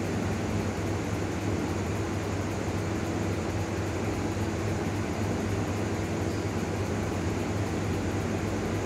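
Steady low hum with an even hiss over it, constant background room noise with no change through the pause.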